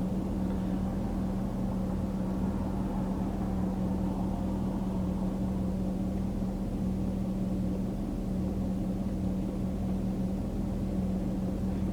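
Car engine running steadily, heard from inside the cabin, with a constant low hum and no change in pitch.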